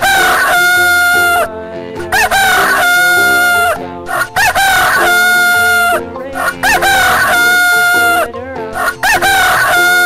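Rooster crowing cock-a-doodle-doo five times in a row, about every two seconds. Each crow is loud, rising at the start and ending in one long held note.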